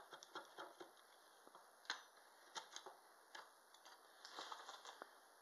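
Draw knife paring a wooden spoon blank in short strokes: a series of faint, irregular crisp clicks and scrapes of the edge on the wood, the sharpest about two seconds in and a quick run of them near the end.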